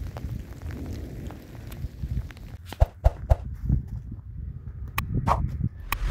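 A donkey's hooves and a person's footsteps on stony ground: a few irregular sharp knocks and scrapes in the second half, over a low rumble.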